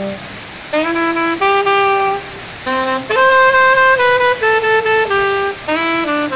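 Solo saxophone playing a slow melody of held notes: a long note fades out at the start, and after a short pause a phrase of about eight sustained notes steps up and down in pitch.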